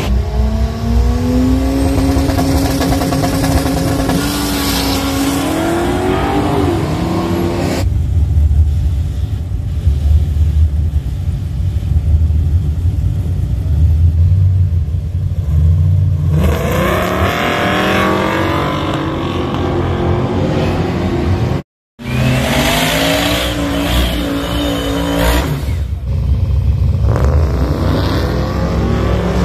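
Drag cars' engines: one accelerating away down the track with rising pitch, then a low idle while cars wait on the start line, then a hard rev-up with rising pitch as they launch. After a brief dropout, a car's engine is held at high revs through a burnout, with tyre noise.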